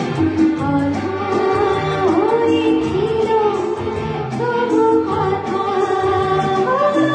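A woman singing a song with instrumental accompaniment and a steady beat.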